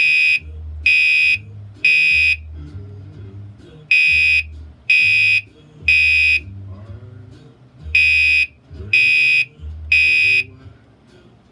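Gentex Commander 3 fire alarm horn sounding the temporal-3 evacuation pattern: three loud half-second blasts about a second apart, a pause, then again, three groups in all.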